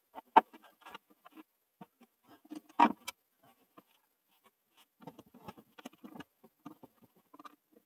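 Small clicks, taps and scrapes of hand work at a DC circuit breaker's wire terminals as wires are fitted in, with two sharp knocks, the first about half a second in and the second about three seconds in.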